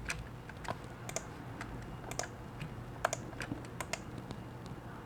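Irregular clicks of a computer mouse and keyboard being worked, some in quick pairs, over a faint steady low hum.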